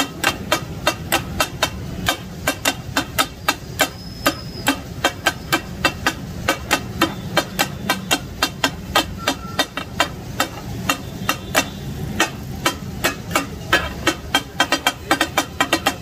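Two steel takatak blades clattering rhythmically on a flat iron griddle as they chop kidneys and kapooray in gravy, about four sharp strikes a second, over a steady hiss of steaming liquid.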